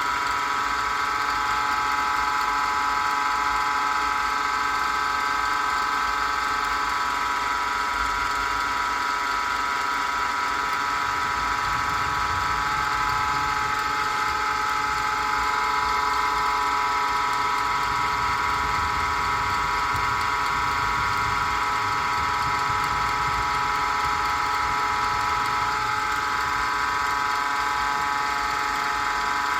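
Wood lathe turning a pen blank, its motor running at a steady speed with a constant high whine.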